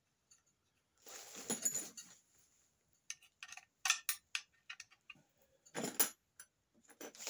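Metal screws and aluminium parts of a crossbow stock being handled and fitted by hand: a scatter of small clinks and clicks, with a brief rustle about a second in and a louder clatter near six seconds.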